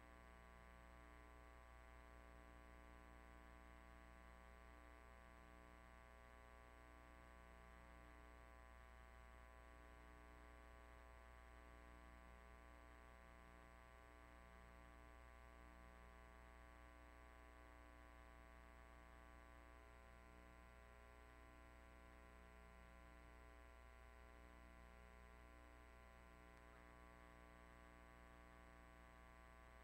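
Near silence: a faint, steady electrical hum and hiss with no other sound.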